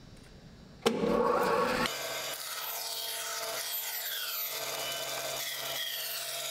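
Woodworking band saw ripping a thin wooden board fed along the fence. The cut starts abruptly about a second in, is loudest for its first second, then settles into a steady, even sawing sound.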